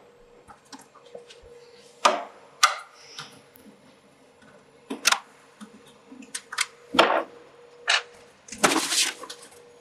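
Scattered clicks and knocks of a long Torx screwdriver working the screws in the back of a Macintosh SE/30's plastic case, with a longer scrape near the end.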